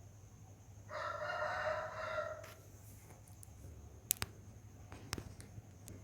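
A rooster crows once, a single call of about a second and a half, followed by two sharp clicks about a second apart.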